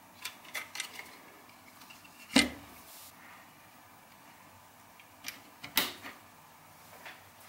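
Handling of a bare power-supply circuit board: a few light clicks, a knock about two and a half seconds in as the board is laid down on the bench, and a sharp click near six seconds as the mains cable's plastic connector is pushed onto the board.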